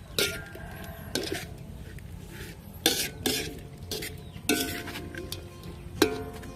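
Metal spatula striking and scraping a pan while stir-frying, about six strokes at uneven intervals, several leaving a short metallic ring.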